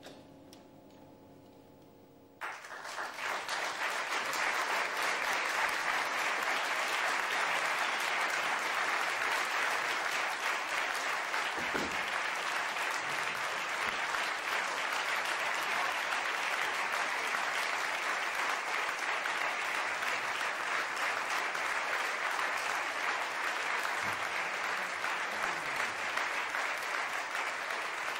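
A live concert audience applauding: the clapping breaks out about two seconds in as the last faint held notes of the music die away, then stays steady.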